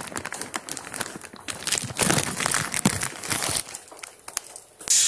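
Rustling, scraping handling noise of a phone being moved around in the hand, with irregular clicks and crackles as the microphone rubs against fingers and fabric. Music comes in suddenly at the very end.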